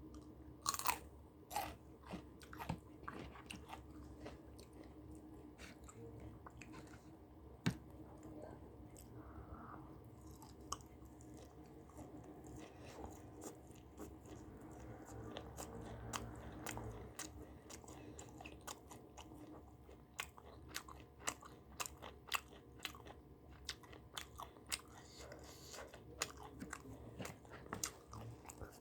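Close-miked chewing and crunching of samgyeopsal pork belly and raw Cheongyang chili peppers, with many short crisp bites; the sharpest come about a second in and near eight seconds, and they thicken again in the last third.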